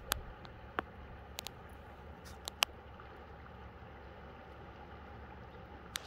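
Shallow river water flowing and lapping around rocks at the bank, a steady soft wash with several small sharp plinks in the first few seconds.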